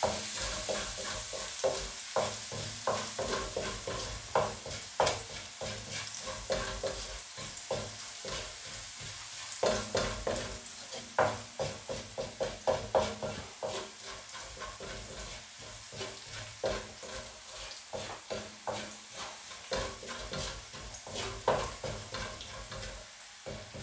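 Minced garlic sizzling in oil in a metal wok, with a wooden spatula scraping and knocking against the pan again and again as it is stirred. The garlic is being sautéed until golden brown.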